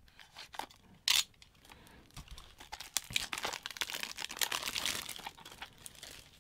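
Plastic cassette case being opened, with a sharp snap about a second in, then the folded card insert crinkling as it is drawn out and handled.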